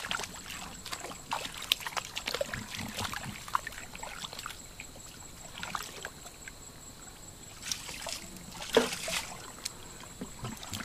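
Hands groping and scooping through shallow muddy water, making irregular small splashes, drips and sloshing, with a louder splash about nine seconds in.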